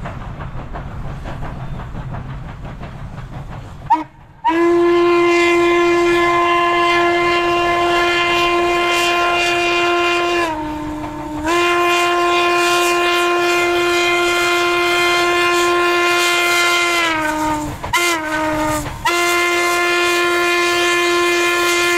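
The steam whistle of Western Maryland 1309, a 2-6-6-2 articulated steam locomotive, blows the grade-crossing pattern: two long blasts, a short one and a final long one, each blast sagging in pitch as it closes. For the first few seconds, before the whistle, there is only the locomotive's low rumble.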